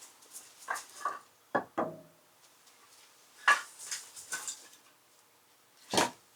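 Dishes and cooking utensils being handled: a string of short, separate clatters and knocks, the loudest one near the end.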